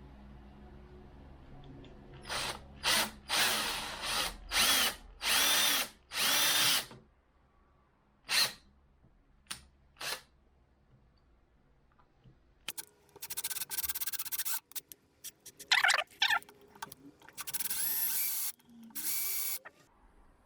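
Power drill run in short bursts of up to about a second, drilling into a broken-off bolt. One group of pulses comes a couple of seconds in and a second group comes near the end, with a few brief blips between them.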